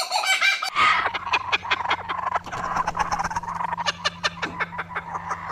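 A domestic fowl cackling in fast, repeated, laugh-like bursts, starting about a second in over a steady low hum.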